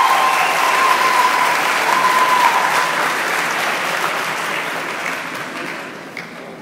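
Audience applauding, loud and steady, with a long high held cheer above the clapping in the first half; the applause dies away over the last second or two.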